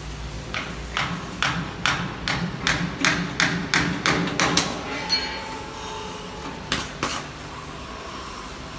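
Repeated sharp knocks, about three a second for some four seconds, then two more near the seven-second mark.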